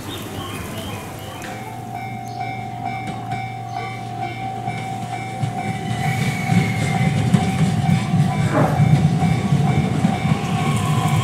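JR East E131 series electric train rolling into a station, its low running rumble building and growing louder through the second half. A steady high tone sounds throughout.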